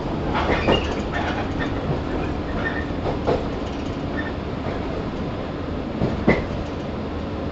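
Running sound inside the motor car of a JR 115 series 1000-subseries electric train: a steady rumble of wheels on rail with a few sharp clacks over rail joints.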